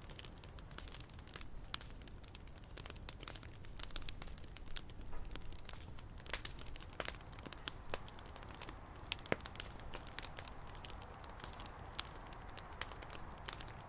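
Wood fire crackling, with many irregular sharp pops and snaps over a low steady rush of flame.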